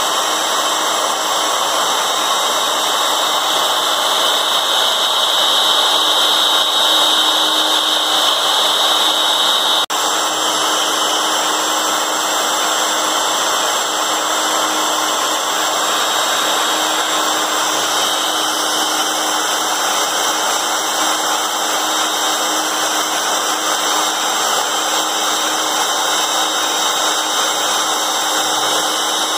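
Porter-Cable 7518 router motor running steadily at full speed on a CNC router while its engraving bit cuts a design into fibreboard: an even, loud whine over the cutting noise.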